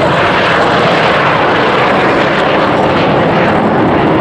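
Four Kawasaki T-4 jet trainers' twin turbofans at takeoff power as the formation lifts off and climbs away: loud, steady jet noise.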